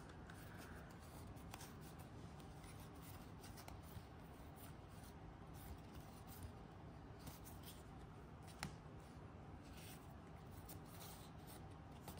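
Faint, soft sliding and flicking of trading cards as a stack is thumbed through one card at a time, with small ticks throughout and one sharper card click about eight and a half seconds in.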